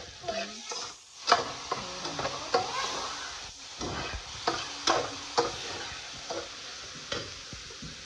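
Metal slotted spatula scraping and clinking against a metal pan as chicken, tomato and onion are stirred, over a steady sizzle of frying. The strokes come irregularly, several a second in places, the sharpest a little over a second in and again around the middle.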